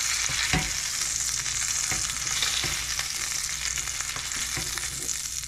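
Egg-and-ham omelet sizzling in a frying pan, a steady hiss that eases a little toward the end, with a few short knocks of a utensil against the pan.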